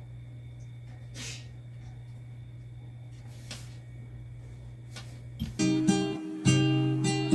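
A steady low hum with a few faint clicks, then strummed acoustic guitar music starts about five and a half seconds in and becomes the loudest sound.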